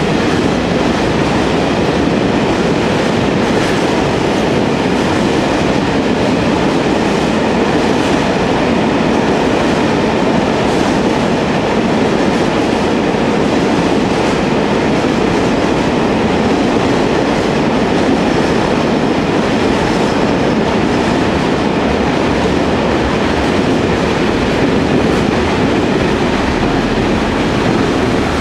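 A freight train passing at speed: a loud, steady rumble of steel wheels on the rails with the clatter of wagons rolling past.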